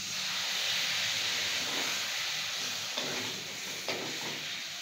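Lemon juice hitting a hot karai of fried spiced potatoes, hissing as it turns to steam. The hiss starts suddenly and slowly fades, and a spatula stirring and scraping the potatoes comes in over the last couple of seconds.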